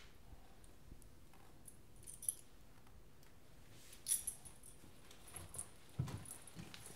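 Faint metallic jingling and clinks of a dog's leash clip and collar tags as a leash is fastened onto a dog's collar, with a soft thump about six seconds in.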